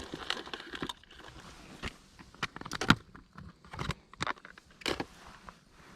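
Scattered sharp clicks and knocks of close handling noise, the loudest about three seconds in.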